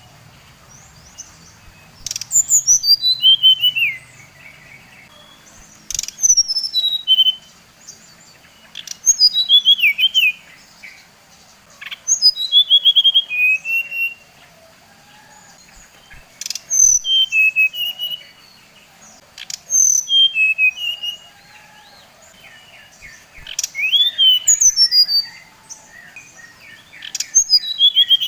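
Sikatan rimba dada coklat (SRDC) jungle flycatcher singing, used as a bait song to rouse other SRDC birds. Its song is a repeated phrase of clear whistled notes that step down in pitch, coming about every three seconds with short pauses between.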